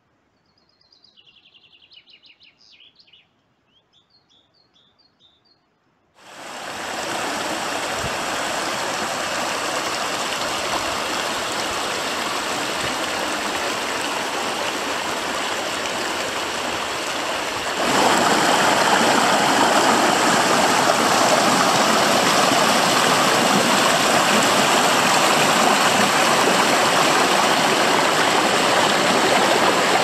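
A small bird chirping and singing in near quiet, then, from about six seconds in, a fast-flowing river rushing loudly over rocks, which steps louder a little past halfway.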